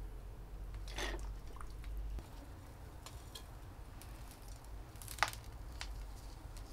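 Faint handling sounds from gloved hands potting succulents: a short rustle about a second in, a sharper brief noise about five seconds in, and small ticks between.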